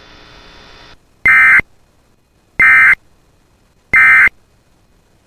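Emergency Alert System end-of-message signal: three short, identical bursts of SAME digital data tones, about 1.3 s apart, marking the end of the NOAA Weather Radio alert. A faint radio hiss lies under the first second.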